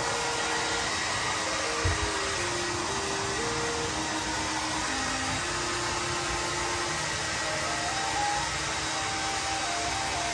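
Handheld hair dryer running steadily at an even pitch, blowing warm air through a golden retriever's wet coat. A soft low thump comes about two seconds in.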